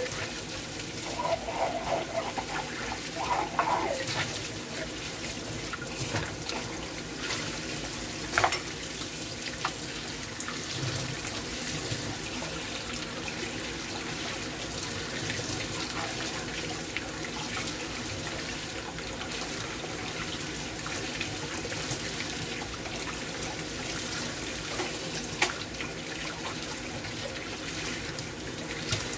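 Kitchen tap running steadily onto dishes in a stainless steel sink as they are rinsed by hand, with a couple of sharp clinks of dishware, one about eight seconds in and another near the end.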